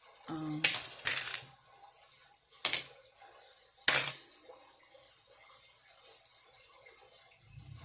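Loose coins clinking and clattering as change is sorted by hand. A quick cluster of clinks comes in the first second or so, then single louder clinks near the third and fourth seconds, with light ticks in between.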